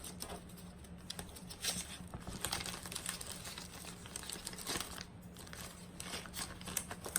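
Plastic packaging crinkling and rustling as it is handled, with scattered light clicks and rustles rather than any steady sound.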